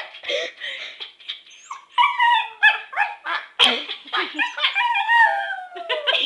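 A dog howling and whining in a run of pitched, sliding yowls, the talking-like howl that her owner hears as 'I love you'. It starts about two seconds in and ends on a long falling howl.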